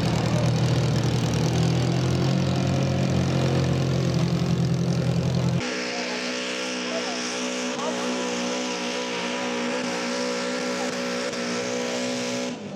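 Garden modified pulling tractor engine running hard. It is loud and low-pitched at first, then cuts suddenly about halfway through to a higher, steady note with a slight waver as the tractor drags the weight sled.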